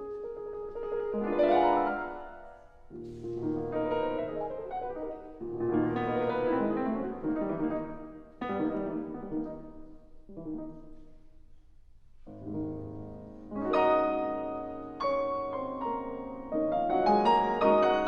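Solo piano playing classical music in phrases of ringing chords that swell and fade, with a short lull about two-thirds through before the playing returns.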